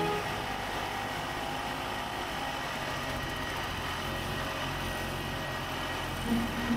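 Vintage Ski-Doo snowmobile's two-stroke engine running as the sled crosses the snow, a steady drone with a louder pitched engine note coming in near the end.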